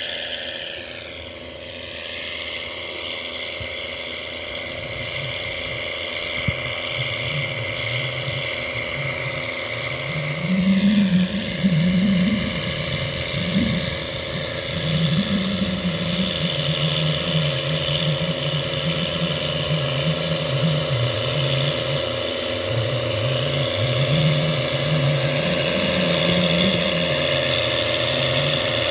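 Case IH 225 tractor engine running under load while pulling a seed planter, growing louder as the tractor approaches, with a steady high whine over the engine note.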